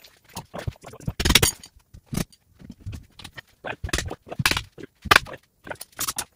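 Workshop handling noise: an irregular string of sharp knocks, clacks and rattles from tools and lumber being picked up and set down, with several louder knocks.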